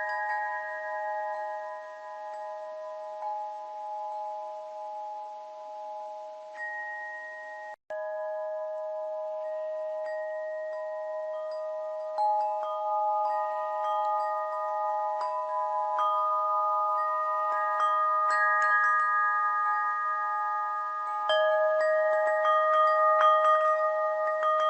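Tuned bell chimes, several notes struck at random and ringing on over one another in a soft, overlapping wash. The sound cuts out for an instant about eight seconds in, then grows slowly louder.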